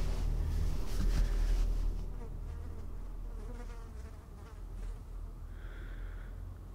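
An insect buzzing, like a fly, loudest for a moment about five and a half seconds in, over a steady low rumble.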